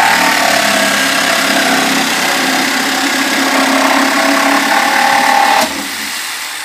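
Electric jigsaw cutting through plywood, its motor and blade running steadily and loudly. About five and a half seconds in it drops off and winds down as the cut is finished.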